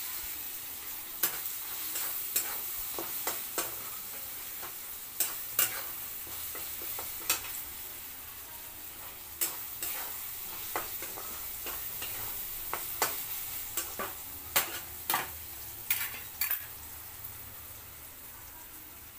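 Spiced vegetables sizzling in oil in a metal kadhai while a metal spatula stirs them, its edge scraping and knocking against the pan in irregular sharp clicks over a steady frying hiss that eases slightly near the end.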